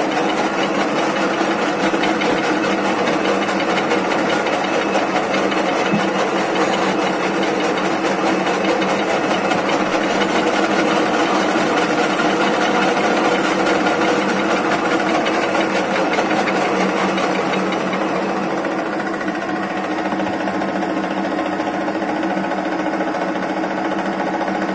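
Metal lathe running steadily, chuck spinning, while an M8×1.25 thread is cut along a steel stud.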